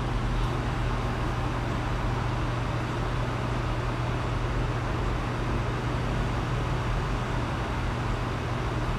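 Steady low hum under an even hiss of background noise, unchanging throughout, with no distinct events.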